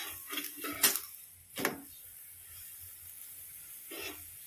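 Steel spatula scraping and knocking against a tawa (flat iron griddle) while a paratha is worked on it: a run of scrapes and clicks in the first two seconds, the loudest a sharp clack about a second in, then one more scrape near the end.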